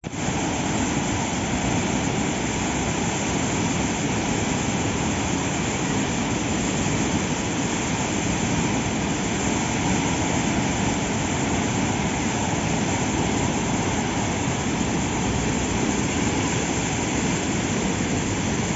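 A waterfall in flood, brown muddy water pouring down a rock cascade into a churning pool: a loud, steady rush of water that does not change.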